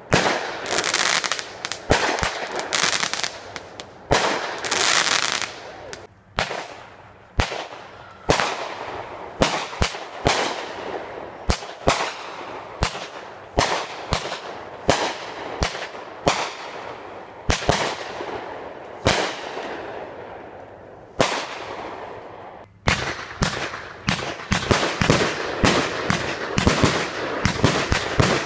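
Aerial fireworks going off: a steady series of sharp bangs from shells bursting overhead, with stretches of hiss between them. Near the end the bangs come thick and fast in quick succession.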